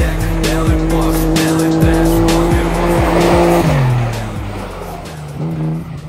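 Car engine held at steady high revs while drifting on ice, with the revs falling away about four seconds in, under background music with a steady beat.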